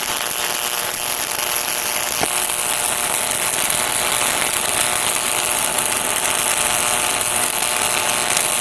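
Stick-welding arc burning steadily on alternating current at about 115 amps as the rod is dragged along the plate: an even crackle with a little AC buzz, a soft, smooth arc. A brief click about two seconds in.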